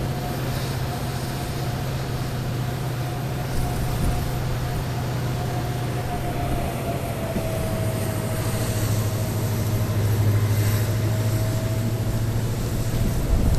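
WDP4 diesel-electric locomotive's EMD 16-cylinder two-stroke engine humming under power while hauling the train. A steady low drone with a higher whine above it and rail running noise; the drone drops a little in pitch about eight seconds in.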